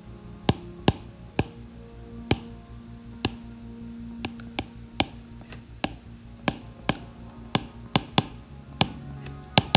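Soft, steady background music with a series of sharp, irregular taps of a stylus on a drawing tablet as words are handwritten.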